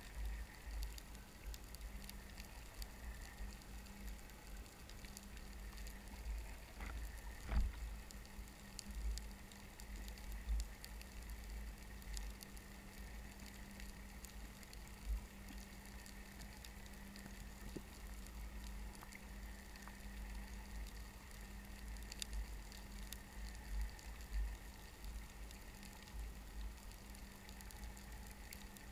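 Underwater ambience picked up through a camera housing: a low rumble with a steady hum, scattered faint clicks and crackles, and one louder knock about a quarter of the way in.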